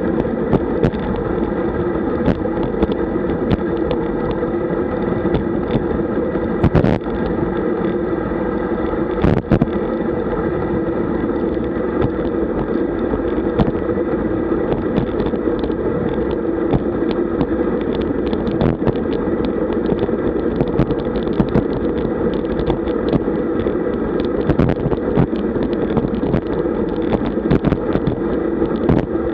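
Steady rush of wind and tyre noise picked up by a camera mounted on a road bicycle moving at about 43 km/h, with frequent small knocks and rattles from the road surface. Two sharper knocks come about a quarter of the way in.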